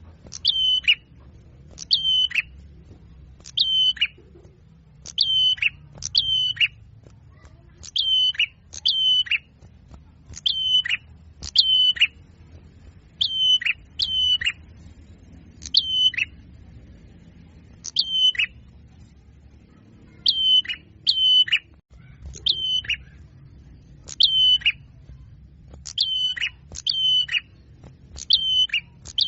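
A small songbird's short, sharp call repeated about once a second, sometimes in quick pairs, each note falling quickly in pitch. It is a lure call for attracting small birds.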